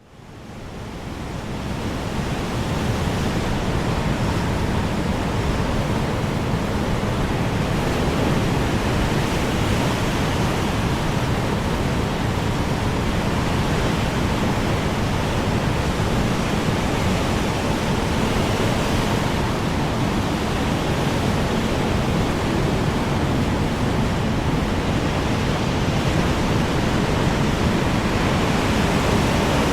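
Strong wind blowing as a steady rushing noise, fading in from silence over the first two or three seconds and then holding level.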